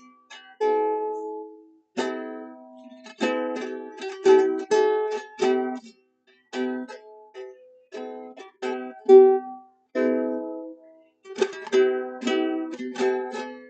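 A plucked string instrument strummed in chords, each strum ringing and fading, played in short phrases with brief pauses between them.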